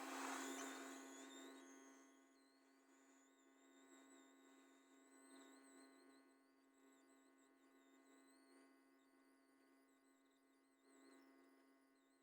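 Faint, steady electrical hum from a hot-air rework station as a new IC is soldered onto a phone circuit board, with a faint wavering high whine. A rush of air at the start fades away over the first second or two.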